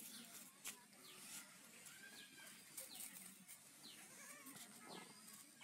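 Faint, soft bleats from goat kids a couple of times, with short high falling chirps and small clicks in a quiet background.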